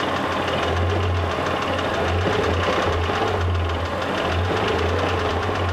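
Mitsubishi 6G74 3.5 L GDI V6 engine running steadily with a rapid, even ticking knock, the engine knock that is being investigated.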